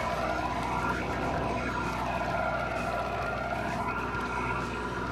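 Steady drone of a sportfishing boat's engine, a hum of several steady tones with a swirling sweep that rises and falls every second or two.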